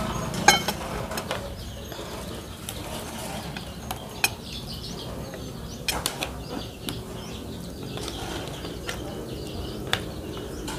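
Metal spoon clinking and scraping against plates and a serving bowl as food is dished out: a scattered series of sharp clinks and taps, irregularly spaced, over low steady background noise.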